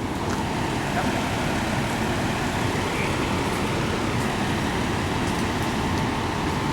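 Steady traffic noise from road vehicles, an even rumble and hiss without breaks.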